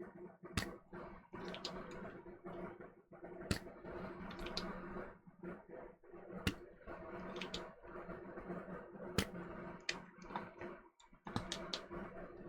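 Spring-loaded solder sucker being cocked and fired, its plunger snapping sharply about seven times at irregular intervals as solder is sucked from the stick's pads. A steady hum runs underneath.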